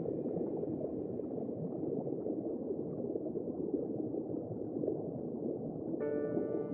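Steady low bubbling, gurgling water noise under faint sustained music tones, with a new chord coming in near the end.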